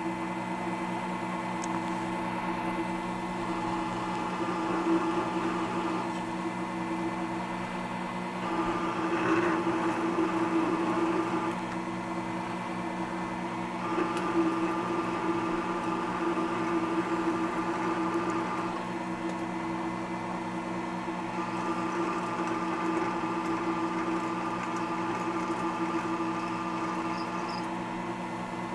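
Drill press motor running steadily while a Silver & Deming reduced-shank drill bit cuts through a metal plate, enlarging a hole toward 5/8 inch. The cutting tone comes and goes several times as the feed is applied and eased off.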